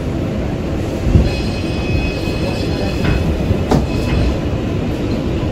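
Kawasaki R188 subway car running between stations, heard from aboard: a steady rumble of wheels on rail, a thump about a second in, then a thin high wheel squeal for a couple of seconds, and a few sharp clicks near the middle.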